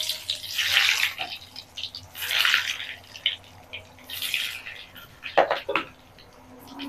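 Breadcrumb-coated vegetable chops sizzling in hot oil in a kadai (wok), with a surge of loud sizzle each time one is slipped into the oil, about four in all. Two sharp knocks come a little after five seconds in.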